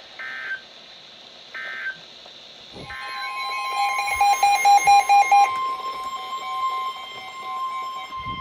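Emergency Alert System tones on NOAA Weather Radio: three short warbling bursts of digital data tones, then the steady 1050 Hz warning alarm tone starting about three seconds in, announcing a new warning. Over the alarm tone comes a rapid electronic beeping, loudest for a couple of seconds after it starts and then fading.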